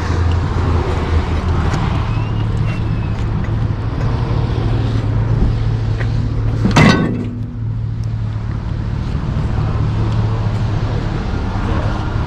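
Pickup truck engine running steadily with a low hum, and a single sharp bang about seven seconds in.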